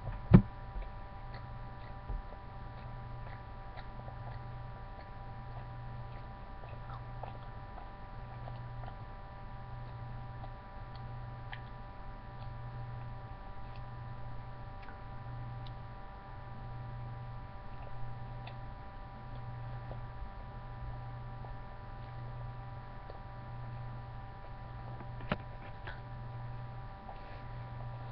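Steady electrical hum picked up by a webcam's microphone: a low hum that swells about once a second under a set of fixed higher tones. A sharp knock comes just after the start, and a few faint clicks are scattered through.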